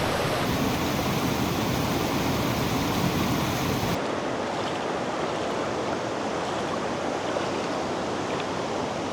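Steady rush of a creek and its cascading waterfalls. About four seconds in it changes abruptly to a thinner, slightly quieter rush of water.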